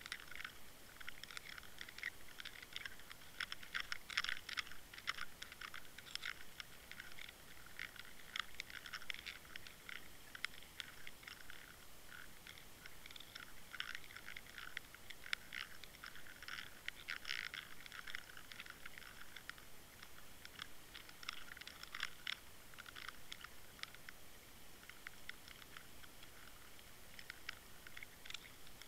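Underwater crackling: a dense, irregular patter of faint, sharp clicks and snaps, thickening into louder clusters every few seconds.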